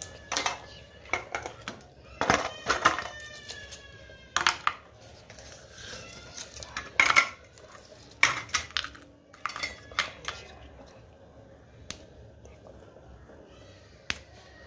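Hard jaggery brittle (gud papdi) snapping apart and its pieces clattering onto a steel plate, an irregular string of sharp clicks and knocks.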